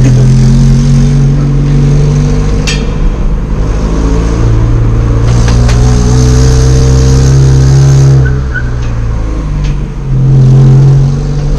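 Honda Civic engine with a loud exhaust, heard from inside the cabin, running under load with a deep drone that sounds like a tractor. The drone eases off about eight seconds in and swells again near the end as the car pulls away.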